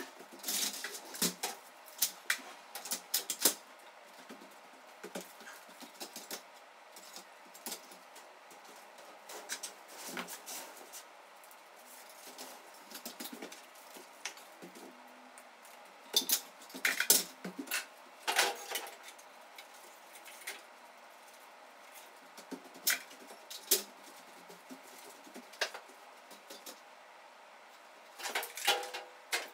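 Scattered clicks, taps and light clattering from hands-on installation work, handling the hanging parts and an aluminium stepladder. The sounds come in bunches: at the start, in the middle and near the end, with quieter stretches between.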